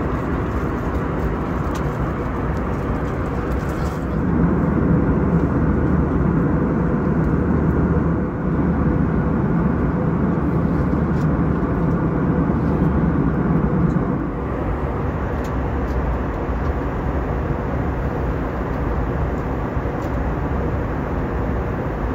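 Steady cabin noise of an Airbus A321-200 airliner in flight, an even drone that grows louder for about ten seconds from roughly four seconds in.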